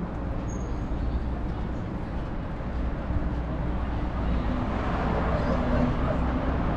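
City street traffic: a steady low engine hum from motor vehicles, with the noise of passing traffic growing louder over the last couple of seconds.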